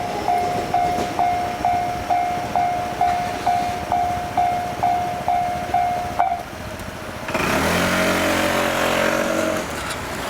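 Japanese railway level crossing's electronic warning bell ringing its repeated clang, about two strikes a second with each strike fading, then stopping about six seconds in as the warning ends. About a second later a louder droning vehicle sound sets in.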